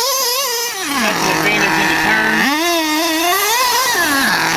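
Small nitro engine of a radio-controlled truggy revving up and down as it drives. It starts high, falls to a low steady buzz about a second in, rises again and wavers with the throttle, then drops once more near the end.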